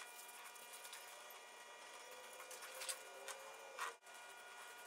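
Quiet brushwork: a paint brush dabbing and rubbing glue into a joint, with a few light clicks, over a faint steady hum.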